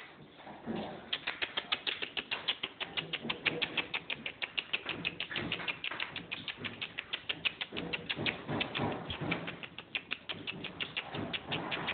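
Airedale terrier puppy lapping water from a wet concrete floor: a rapid, even train of wet clicks, about six a second, starting about a second in.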